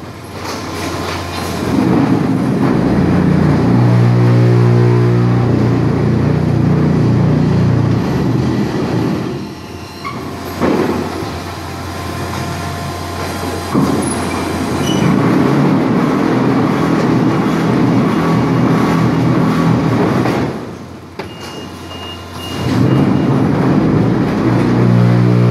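Machinery of a concrete block production line running: loud steady mechanical noise from conveyors and the block-stacking gantry. An electric motor hum swells in twice, and the noise drops off briefly twice.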